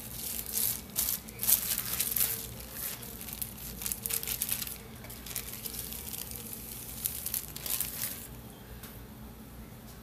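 Thin plastic sheets from a tortilla press crinkling and rustling as a freshly pressed corn tortilla is peeled off them, in a run of rustles that is loudest about a second and a half in and dies away after about eight seconds.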